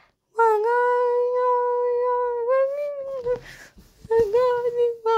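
A high voice singing a long held note for about two seconds that lifts slightly in pitch, followed by a few shorter sung notes near the end.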